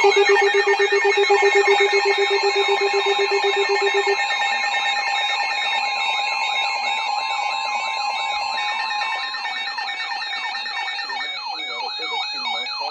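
Several weather alert radios sounding their alarms together as a new warning comes in. A fast low beeping stops about four seconds in, over repeated warbling siren sweeps and steady high tones.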